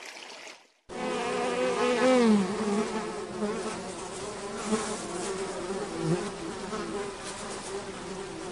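Flies buzzing, the buzz wavering and gliding up and down in pitch as they move about. It starts about a second in, after a brief silence.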